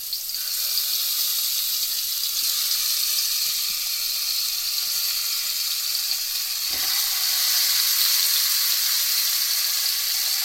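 Marinated chicken pieces sizzling in hot oil, a steady frying hiss. About seven seconds in there is a soft knock and the sizzle gets louder.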